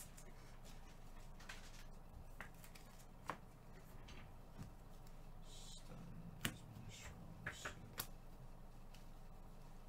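Gloved hands handling a foil pack and baseball trading cards: faint rustling broken by a handful of sharp clicks as the pack is opened and the cards are spread out, several of the clicks coming close together about two-thirds of the way through.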